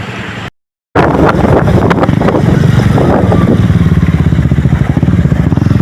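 A motorcycle engine runs loud and steady with a fast pulsing beat, after a brief dead-silent break about half a second in.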